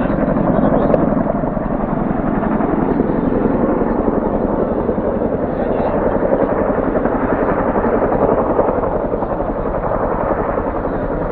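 Loud, steady mechanical noise that runs without pause.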